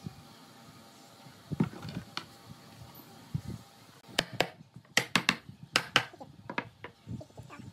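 Claw hammer driving a nail into a pine board: a quick, uneven run of about ten sharp hammer blows in the second half, after a few quieter knocks.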